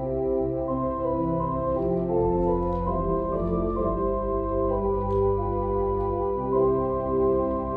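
Organ playing slow, sustained chords over a held bass line, the chords changing every second or so.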